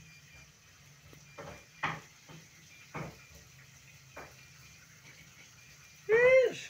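A cat meows once near the end, a short call rising then falling in pitch, the loudest sound here. Before it, a few light clicks and taps.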